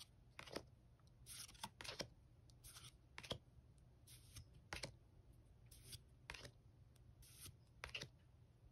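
Pokémon trading cards from a booster pack slid one at a time from the back of the stack to the front: about a dozen faint, short swishes of card on card, one every half second to a second.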